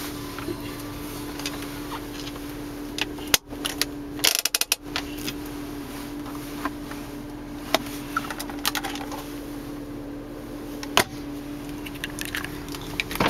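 Clicks and knocks from a car's interior controls and console trim being handled, including a quick rattle of clicks about four seconds in, over a steady hum.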